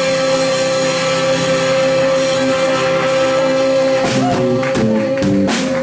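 Rock band playing the end of a song. A chord with one strong note is held for about four seconds, then drum hits and a run of quick chord changes on guitar follow near the end.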